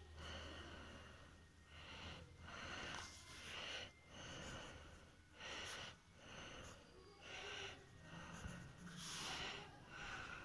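Faint scratching of a Luxor Ink Glide fountain pen's fine nib writing on ruled paper, in short strokes with brief pauses about a second apart.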